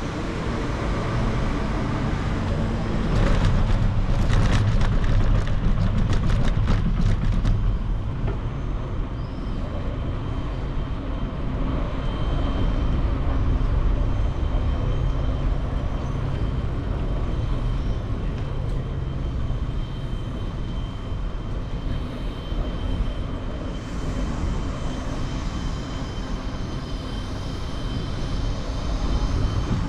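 A bicycle rolling over stone paving and then asphalt: a steady low rumble throughout. About three seconds in, a run of rapid rattling clicks lasts some four seconds as the wheels cross the paving stones, then the rumble goes on smoother.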